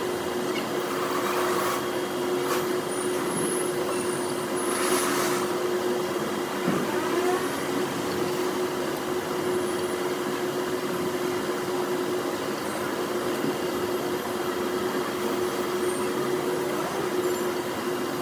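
Steady mechanical hum: one constant tone over a hiss, with brief louder noises about one and a half and five seconds in.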